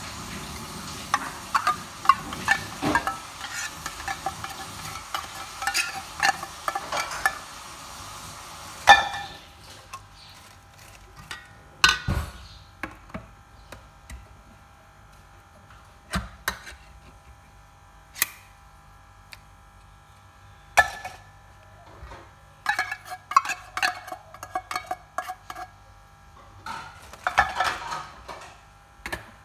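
Metal spoon scraping and clinking against a stainless steel mixing bowl as thick cream is scooped into a dessert mix. A dense run of scrapes and clinks for about the first nine seconds, then scattered single clinks, and two short bursts of scraping near the end.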